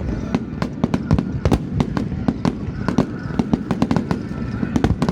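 Fireworks display: a rapid run of aerial shell bursts and crackles, several sharp bangs a second over a continuous low rumble.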